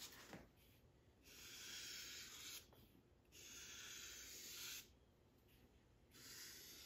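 Sharpie permanent marker drawn in long strokes across a foam-core board: three faint scratchy hisses of about a second and a half each, separated by short pauses, the third starting near the end.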